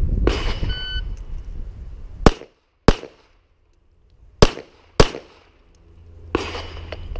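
A shot-timer start beep, then four 9mm shots from a Gen 3 Glock 17 pistol, fired one-handed. The shots come as two pairs about half a second apart, with a pause of about a second and a half between the pairs while the pistol changes from strong hand to weak hand. The string times 4.31 seconds from beep to last shot.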